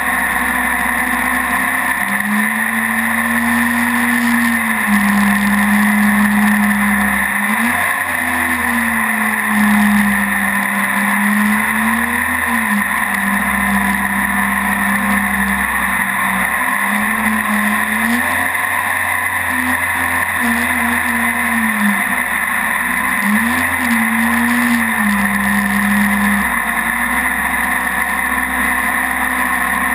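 Mini jet boat's engine running under way, its pitch rising and falling several times as the throttle is changed, over a steady hiss.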